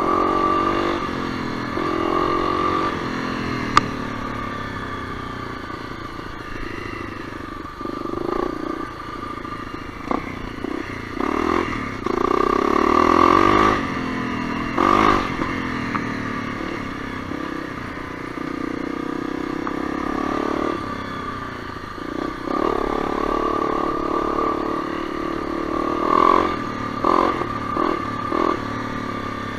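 Honda CRF250L's single-cylinder four-stroke engine running at changing revs while trail riding, the throttle opening in several short surges. Scattered clatter and knocks are heard along with it.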